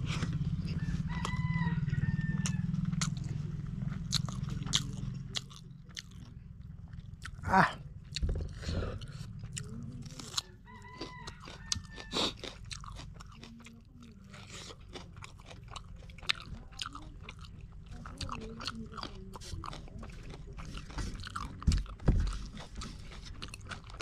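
Close-up chewing and wet mouth noises of a person eating fish curry and rice by hand, with scattered crunches and smacks. A low hum drops away about five seconds in.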